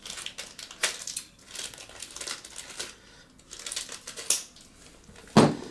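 Small shipping package being handled and torn open, its packaging crinkling and rustling in short bursts with sharp clicks, and a louder knock near the end.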